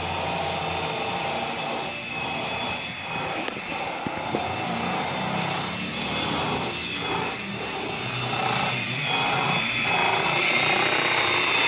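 Electric hand mixer running steadily with a high motor whine as it beats boiled potatoes for mashing, louder from about ten seconds in.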